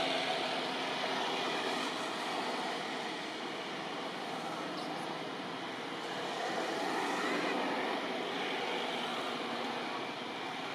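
Steady outdoor background noise, an even rushing hiss with no distinct events.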